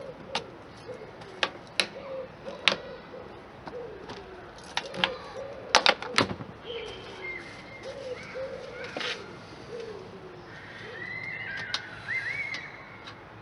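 A pigeon cooing over and over, with a dozen or so sharp clicks and taps from hand work on a motorcycle, the loudest being a close cluster about six seconds in. Higher chirps from another bird come in near the end.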